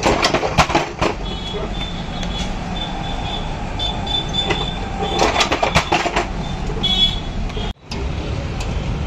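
Busy street-stall ambience: a steady rumble of passing traffic, with two short bursts of clattering from work at the stall, one right at the start and one about five seconds in.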